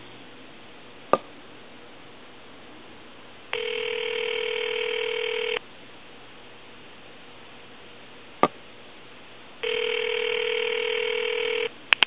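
Telephone ringback tone on a long-distance call: two steady, buzzy two-second rings about four seconds apart, the far-end phone ringing unanswered. A single sharp click comes between the rings, and a double click follows just after the last ring stops, near the end.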